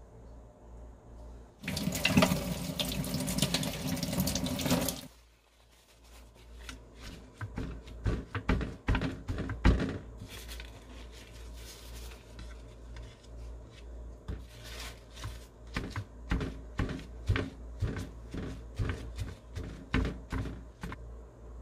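A kitchen tap runs into a stainless steel sink for about three seconds, then shuts off. After that, paper towels crinkle and pat as they are pressed over raw abalone on a plastic plate, with many short irregular rustles and soft knocks.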